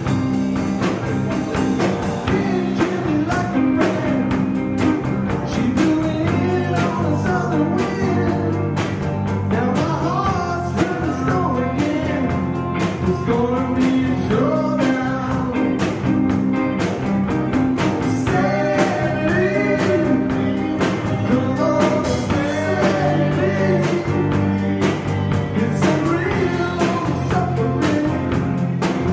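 Live rock band playing a song: a steady drum beat under bass, guitar and a wavering lead melody.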